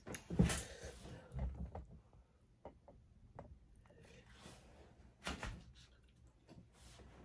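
Someone eating a seafood boil: scattered short clicks, knocks and mouth sounds from handling and eating shellfish, with a few louder bursts about a second and a half in and around five seconds in.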